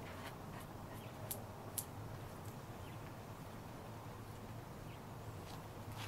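Quiet hand-work on a suspension fork: a few faint, light clicks over a steady low hum as the fork's stanchion is threaded in by hand.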